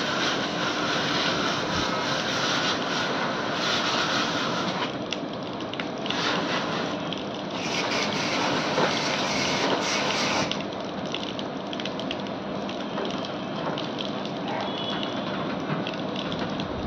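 Water jet from a spray gun hitting a split AC outdoor unit, a steady hiss that swells and eases as the jet is moved across the unit.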